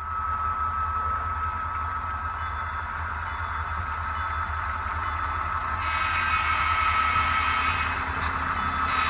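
Model train locomotive running on a layout: a steady motor whine over a low rumble, a little louder and hissier from about six seconds in.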